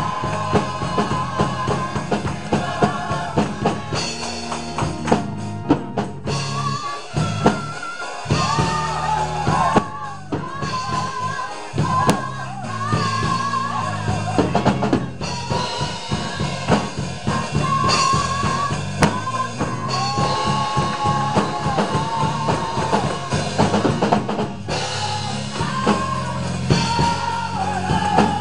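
Gospel choir singing with drum kit, bass and keyboard accompaniment, voices holding long notes with vibrato over a steady beat.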